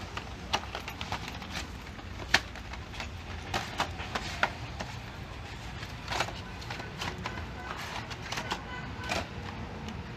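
Irregular sharp clicks and light taps of small hardware being handled, over a low steady background hum.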